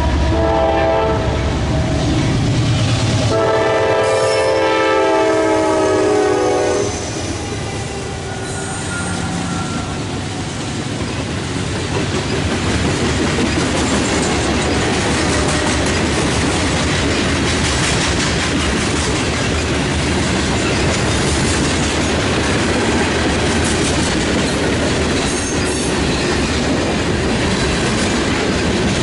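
Freight train passing close by. A diesel locomotive horn sounds until about a second in and again for several seconds from about three seconds in. Then the freight cars' wheels rumble and clatter steadily along the rails.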